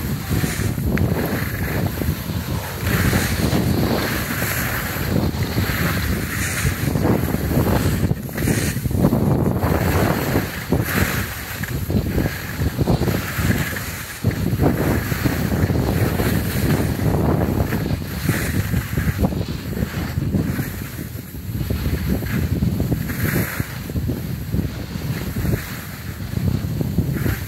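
Wind buffeting the microphone of a phone carried by a skier going downhill, with the hiss of skis sliding over packed snow swelling and fading every second or two.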